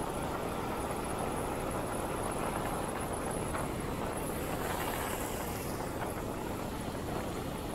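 Steady rush of wind and road noise from a moving motorcycle, with wind buffeting the microphone.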